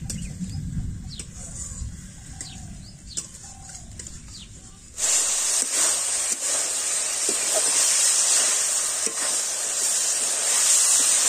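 Short bird chirps in the open air, then about five seconds in a loud, steady sizzle of broccoli and onion frying in oil in a metal wok, with a few clicks of the spatula against the pan.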